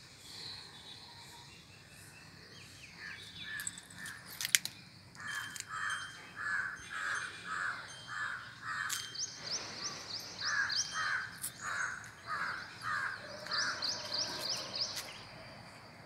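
A crow cawing in two runs of repeated caws, interrupted by a small bird's quick, high chirps. A single sharp click about four and a half seconds in.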